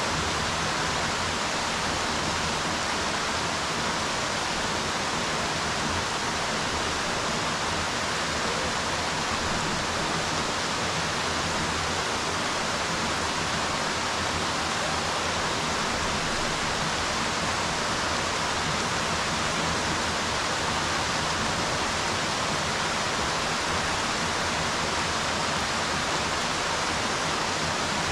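Rain falling steadily on a swimming pool, an even, unbroken hiss.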